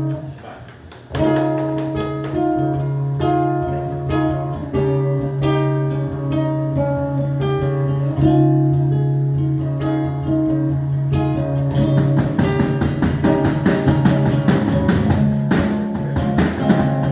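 Live forró band playing an instrumental passage. The music drops briefly and comes back in about a second in, carried by held melody notes, and a fast steady percussion beat joins near the end.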